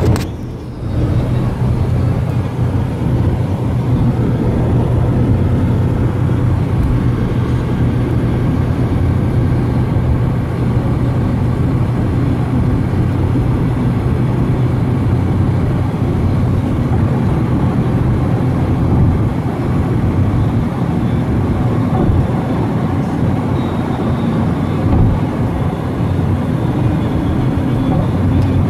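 Steady road and engine noise inside a car's cabin at highway speed: a constant low drone with tyre and wind rush.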